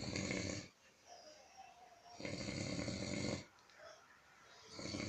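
An elderly man snoring in his sleep, a snore about every two and a half seconds, each lasting about a second, with quiet breathing between.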